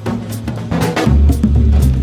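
Background music with drums and a steady beat; a deep bass comes in about a second in.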